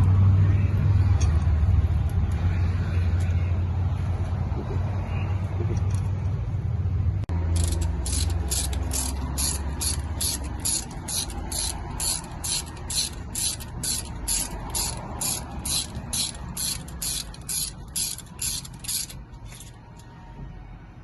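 A steady low mechanical hum for the first seven seconds or so, then a ratchet wrench clicking in an even rhythm, about two clicks a second, as fasteners are run down during axle reassembly; the clicking stops shortly before the end.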